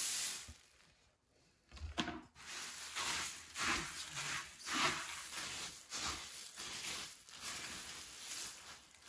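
Puffed rice poured into hot syrup in a wok, its hiss dying away within the first second; after a short pause it is stirred and turned with a slotted metal spoon, giving repeated rustling, scraping strokes about once or twice a second.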